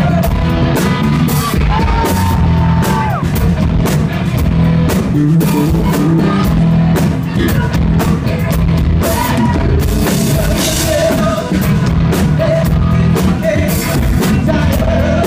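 Live rock band playing loudly, with drum kit, guitar and a singer's voice.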